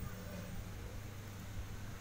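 Steady low hum with an even background hiss; no distinct sound event stands out.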